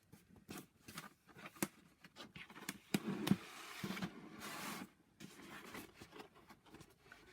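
Cardstock being handled and pushed into place by hand: scattered light taps and crackles with brief rustling, as the gluing tabs of a paper hat are pressed against the brim.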